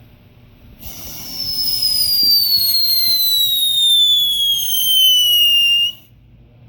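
Unmodified Piccolo Pete whistle firework burning, giving a loud whistle that slowly falls in pitch for about five seconds, then cuts off suddenly with no bang.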